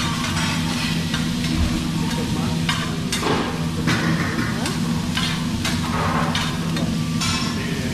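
Vegetables sizzling on a hot hibachi griddle as the chef tosses them with two metal spatulas. The spatulas scrape and clack on the steel surface now and then.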